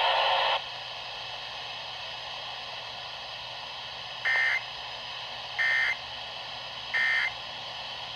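Three short bursts of EAS end-of-message data tones, the warbling digital code that closes an alert, evenly spaced about 1.3 seconds apart over faint radio hiss. A louder hiss cuts off about half a second in.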